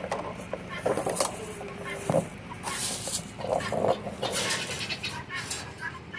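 Poultry clucking and calling in short bursts, over scattered scraping and knocking as a heating cable and pull tape are dragged through a plastic rain barrel and hose.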